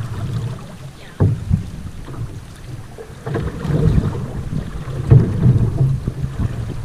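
Canoe being paddled: water splashing and lapping at the hull, with a few sharp knocks or splashes from the paddle strokes, over a low rumble of wind on the microphone.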